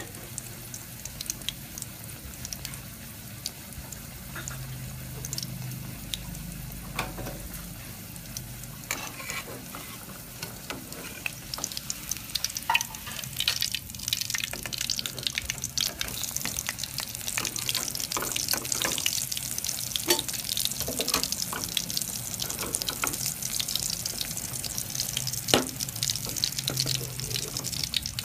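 Fish-paste cake frying in hot oil in a steel wok: a steady sizzle with crackling pops, louder in the second half, with now and then a metal spatula scraping and knocking against the wok as the cake is lifted.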